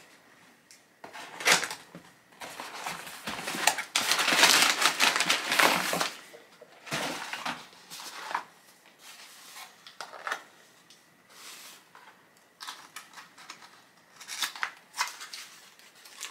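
Cardboard box and packaging being handled and torn open: irregular rustling, scraping and tearing with scattered clicks, the longest and loudest stretch about four to six seconds in.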